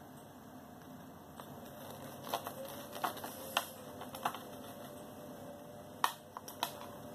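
A knife cutting through a slice of crisp toasted garlic bread: a string of sharp crunches and clicks about two seconds in, then a few more near the end.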